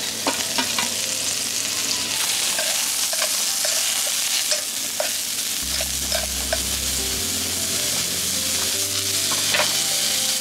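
Mixed mushrooms sizzling in hot oil in a nonstick frying pan as they are stir-fried: a steady hiss with scattered clicks of the spatula against the pan.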